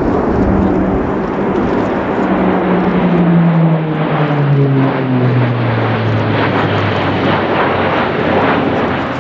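Airbus A400M Atlas flying past with its four TP400 turboprop engines and propellers running as a loud drone. From about two and a half seconds in to about six, the drone's tone falls steadily in pitch as the aircraft passes.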